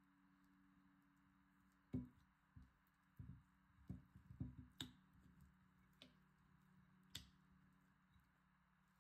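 Soft scattered clicks, knocks and wet dabs as a flour-coated chicken patty is dipped and turned in a ceramic bowl of beaten egg, loudest about two seconds in and clustered a little later, over a faint steady hum.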